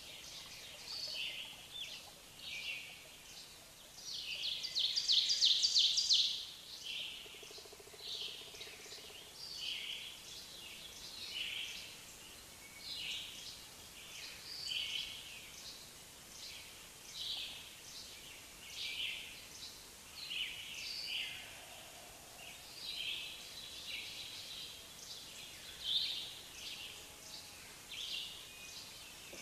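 Wild birds singing and calling, short high phrases repeating every second or two, with a louder rapid trill about four to six seconds in.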